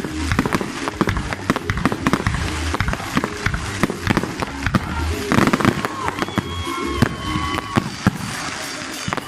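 Display fireworks going off in quick succession: many sharp bangs and crackles close together throughout.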